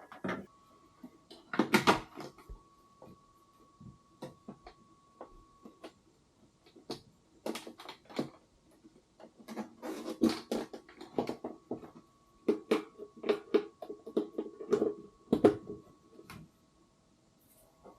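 Irregular clicks, taps and knocks, some in quick clusters, like small parts being handled and fitted, with a faint steady tone underneath.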